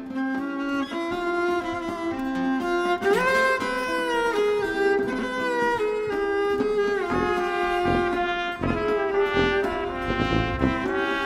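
Live folk-band music led by a bowed viola playing a melody of held notes. A low, steady beat joins in about seven seconds in.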